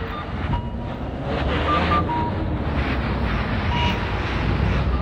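Wind and handling rumble on a handheld camera's microphone while walking beside a street with traffic, the sound made rough and noisy by hands covering the microphone. A few short high electronic beeps sound now and then.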